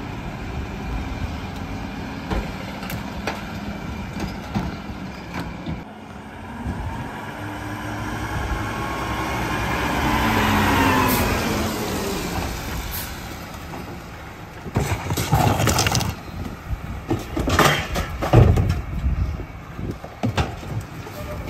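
Mack rear-loader garbage truck running and pulling forward, its sound swelling and gliding in pitch as it passes about ten seconds in. Later comes a run of loud knocks and bangs as plastic trash cans are handled at the truck's rear.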